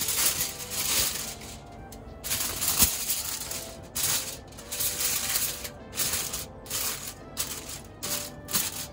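Aluminium foil crinkling as hands press and crumple it down over a pan as a lid, in repeated crackly rustles, about one a second in the second half. Light background music underneath.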